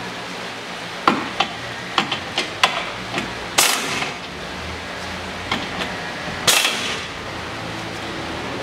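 Irregular metal clicks and knocks of hand tools on the front suspension's ball-joint fasteners, with two louder ringing clanks about three and a half and six and a half seconds in.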